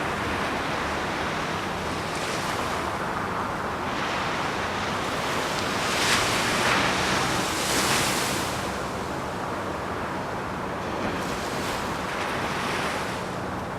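Ocean surf breaking and washing in a steady rush, with a couple of louder breaking waves about halfway through.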